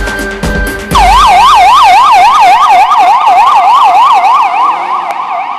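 Music with a drum beat cuts off about a second in, and a police car siren starts in a fast yelp, rising and falling about three times a second. The siren grows somewhat quieter toward the end.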